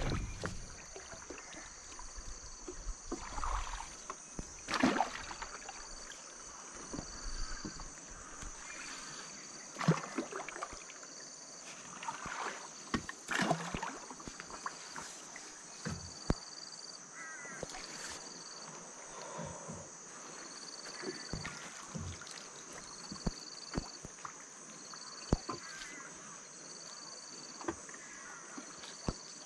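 A river gill net being hauled by hand over the side of a wooden boat: scattered splashes and drips of water, with occasional knocks against the hull. Underneath runs a steady high drone with a short high note repeating about every second and a half.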